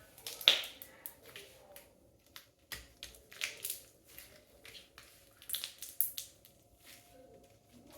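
Homemade slime being squished and folded by hand, making irregular sticky pops and clicks that come in small clusters.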